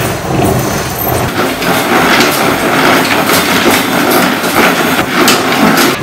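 Manual chain hoist being hauled by hand, its chain rattling and clattering in a dense run of irregular metallic ticks as it lifts a heavy steel beam.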